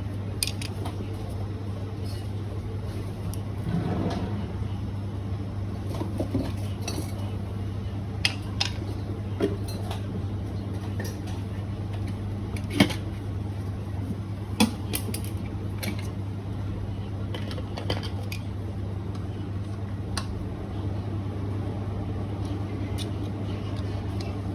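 Parts of a Eureka coffee grinder clicking and clinking as they are handled and set down during cleaning: scattered sharp clicks, two louder knocks about halfway through, over a steady low hum.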